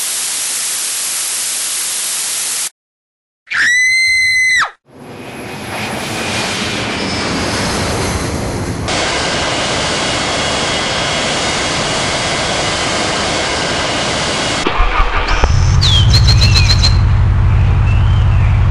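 A run of sound effects. TV static hiss cuts off after about three seconds, and after a short pause comes a high beep about a second long. Then the steady rushing noise of a jet airliner's engines fades in and runs for about ten seconds, giving way to a louder low, rhythmic engine rumble of a motor vehicle with a few high chirps in it.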